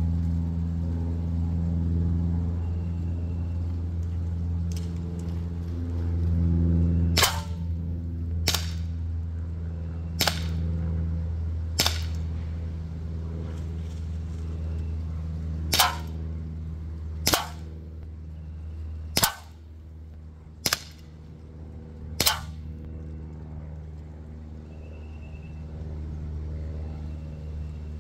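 CO2-powered Umarex Glock 17 Gen3 blowback BB pistol firing nine sharp shots, starting about seven seconds in. Four come about a second and a half apart, then after a pause of a few seconds five more at the same pace, over a steady low hum.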